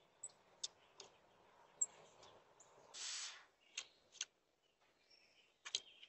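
Faint sharp taps and scratches of a nuthatch's bill and claws on a wooden birdhouse at its entrance hole, about eight scattered clicks with a short scrape about three seconds in.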